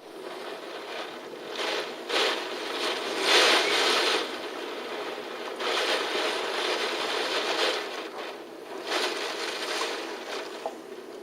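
Typhoon wind and rain: a rushing noise that swells and fades in gusts, loudest about three to four seconds in and again around six to seven seconds.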